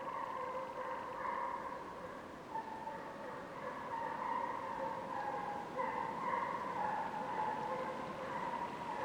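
Several hunting hounds giving voice together in a continuous, overlapping chorus of long pitched bays that shift in pitch: the pack is in full cry on a hare's trail.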